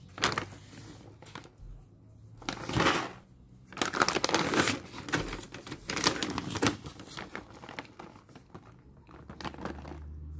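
Bag of dry kitten food crinkling and rustling in irregular bursts as it is handled and turned over, loudest in the middle of the stretch.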